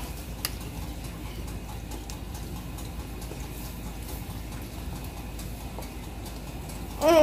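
Faint wet handling sounds from a hand pulling the entrails out of a plucked duck carcass, over a steady low room hum. There is one short click about half a second in, and a voice cuts in at the very end.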